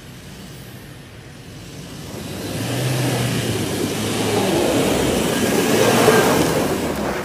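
Toyota Fortuner TRD SUV climbing a dirt track under throttle, its engine revving. The engine and the rush of tyres on loose dirt grow louder as it approaches, are loudest as it passes close by about six seconds in, then drop away sharply at the end.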